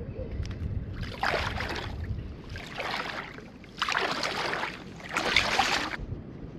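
Legs wading through shallow water: four splashing steps about a second apart, over light wind noise.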